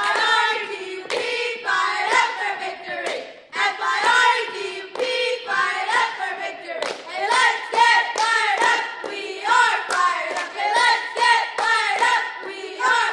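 Four cheerleaders chanting a cheer in unison, spelling out 'F-I-R-E-D-U-P, fired up for victory', with sharp hand claps between the words.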